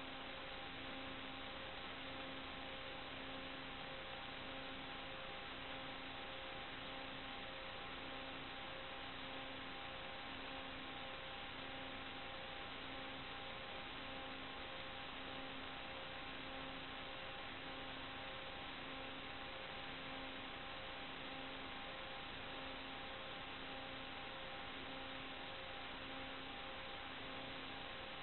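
Steady electronic hiss with faint hum tones, the lowest tone pulsing on and off about once a second: interference noise on an analog FPV video link's audio channel, with no sound from the aircraft itself.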